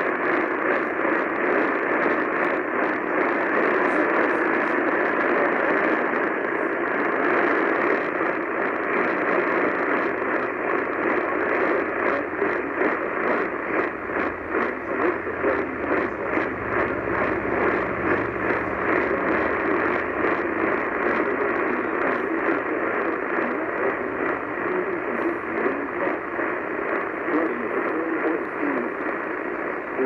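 Portable radio tuned to 890 AM putting out a steady hiss of static, crackling all the way through.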